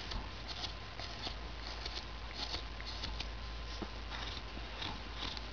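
Carving knife slicing thin chips off a hand-held wooden figure: a run of short, crisp scraping cuts, about two or three a second. These are light cleanup cuts rounding off the carving.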